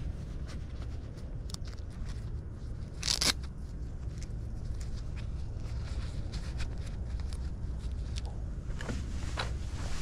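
Work gloves being pulled on, with rustling and small clicks, and one short Velcro rip about three seconds in as a wrist strap is torn open or refastened. A steady low rumble runs underneath.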